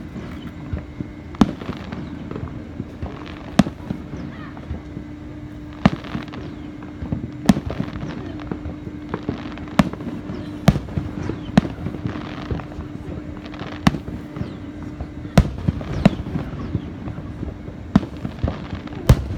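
Aerial fireworks going off: a run of sharp bangs, about one every second and irregularly spaced, with crackling between them. A steady low hum runs underneath.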